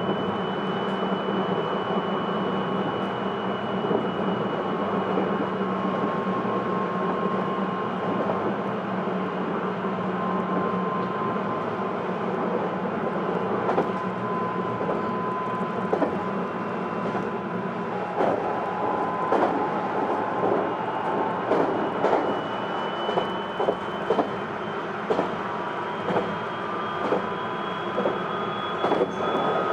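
Interior running sound of a Hokuetsu Express HK100 electric railcar, with the high whine of its Mitsubishi IGBT-VVVF inverter and MT68 traction motors over steady rolling noise. The whine holds and then climbs in pitch over the last several seconds, and wheels start clacking over rail joints a little past halfway.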